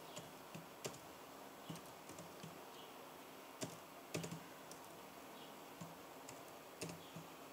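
Faint computer keyboard typing: slow, irregular keystrokes with short pauses between them, a few clicks louder than the rest.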